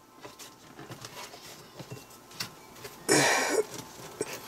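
Close-up rustling and handling noise of a camera pressed against hair and face, with one loud half-second hiss about three seconds in.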